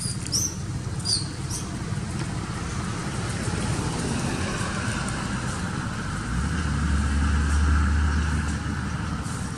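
A motor vehicle's engine rumbling steadily as it passes, growing louder about six seconds in and easing off near the end. A few short, high chirps sound about a second in.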